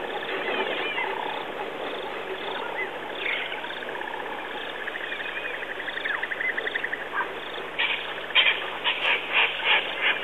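Wild birds calling: scattered chirps and a long, fast, even trill, then a run of loud, harsh, repeated calls in the last two seconds.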